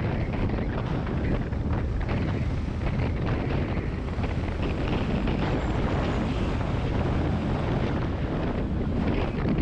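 Wind buffeting the microphone of a motorcycle in motion, a steady dense rush with the bike's engine and road noise underneath.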